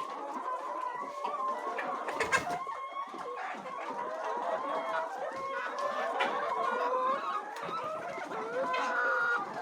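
A flock of laying hens clucking and calling, many birds at once, with a few brief clicks among the calls.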